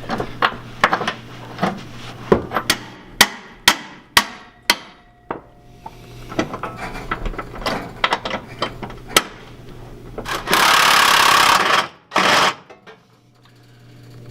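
Hand tools clanking and knocking irregularly on a rusted rear subframe mount nut. About ten seconds in comes a loud, steady hiss lasting about a second and a half, then one short burst of the same.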